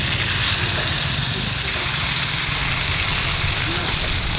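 A steady low motor rumble, like an engine idling nearby, under an even hiss of coconut rice batter frying in the hot cups of a num krok pan.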